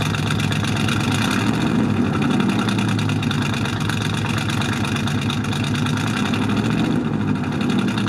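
Buick's engine idling steadily through an exhaust tip packed with Lego bricks; the bricks only drop out of the tip, with no pop, because air passes through the gaps between them and no pressure builds.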